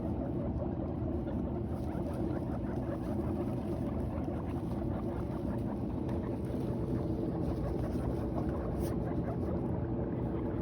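Guinea pigs chewing and rustling hay: a dense run of fine crunches and crackles over a steady low rumble.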